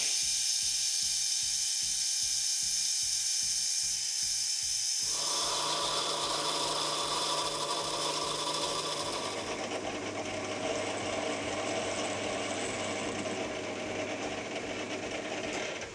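Metal lathe running while a cutting tool faces the back of a steel part and breaks its edges, with a steady low pulse about four times a second. The cut changes about five seconds in, and the high hiss dies away after about ten seconds.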